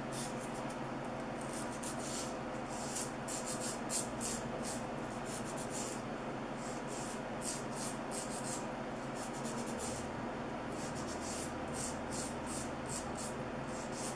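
Hand nail file rasping back and forth across a sculptured acrylic nail as it is shaped, in quick short strokes a few per second, with brief pauses about a third and two thirds of the way through.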